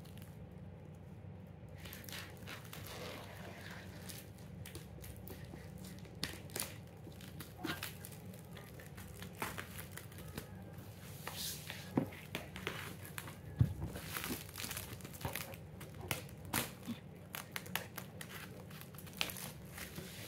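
Shipping packaging of a monitor being unwrapped by hand: irregular crinkling and tearing with scattered clicks and knocks, over a steady low hum.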